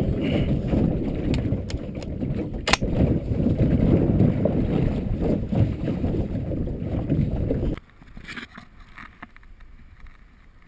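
Wind rumbling on the camera microphone over choppy open water from a low layout boat, with one sharp click about three seconds in. The rumble stops suddenly about eight seconds in, leaving only faint, quieter sounds.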